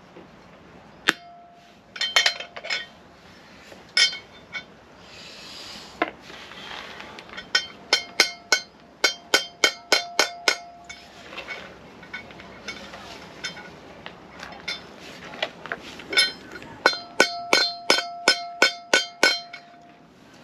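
Hammer striking a bearing driver to seat a wheel bearing race in a caravan's brake drum hub: sharp metal-on-metal strikes with a ringing tone, in runs of quick blows about two a second with short pauses between.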